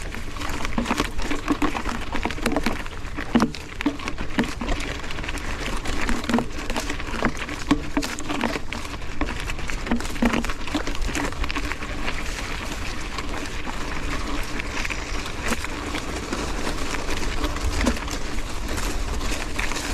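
Mountain bike ridden through low dry shrubs on rocky ground: brush crackling and scraping against the wheels and frame, with a steady clatter of small knocks from the bike over the rocks and a low rumble underneath.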